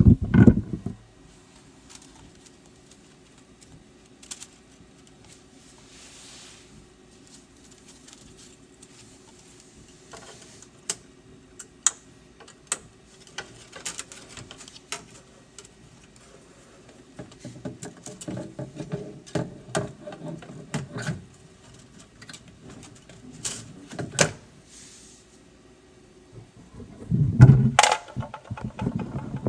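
Hands loading filament into a Dremel 3D40 3D printer: scattered clicks and rubbing of plastic over a faint steady hum, with louder knocks at the start and near the end.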